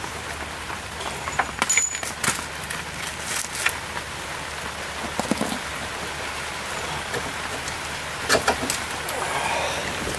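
Scattered light metallic clinks and taps of hand tools against a car's rusty front suspension parts as a nut is put back on by hand.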